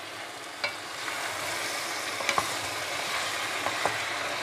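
Chicken and vegetables sizzling in hot oil in a soup pot, sautéing before any water is added. A steady hiss swells about a second in, with a few light clicks.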